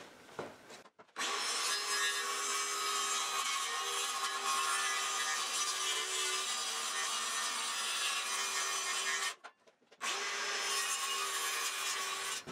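Circular saw cutting through a plywood sheet: a steady motor whine under the noise of the blade in the wood. It starts about a second in, drops out briefly about nine seconds in, resumes, and stops just before the end.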